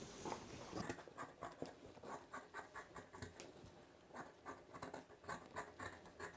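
Scissors cutting through folded dress fabric along a marked line: a faint, quick series of snips of the blades.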